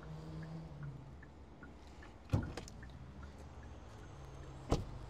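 Two sharp knocks about two and a half seconds apart; the second, near the end, is the driver's door of a 2024 Hyundai Kona Hybrid being shut.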